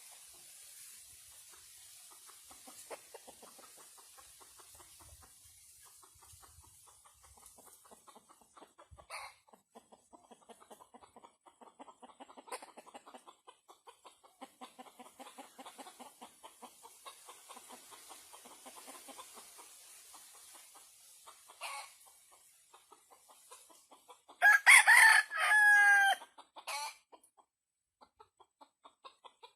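A rooster clucking softly in quick, low pulses, then crowing once, loudly, near the end: a crow of about two and a half seconds that falls in pitch.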